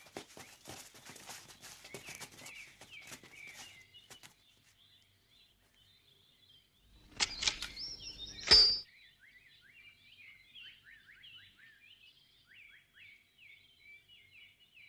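Birds chirping steadily. There is a run of light clicks and rustles in the first four seconds, then, about seven seconds in, a louder swishing burst with a ringing tone that ends in a sharp hit at about eight and a half seconds.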